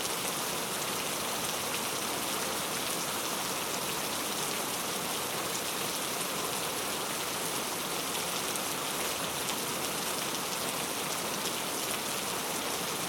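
Heavy, loud rain falling steadily, a dense even hiss of drops striking a surface.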